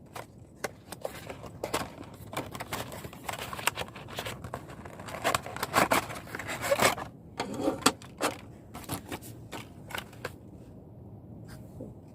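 Close-up handling noises: an irregular run of clicks, knocks and short scrapes, busiest around the middle and thinning out near the end.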